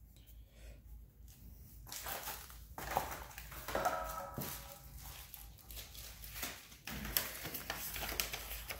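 Low rustling and scattered clicks of handling, with a brief dog whine about four seconds in.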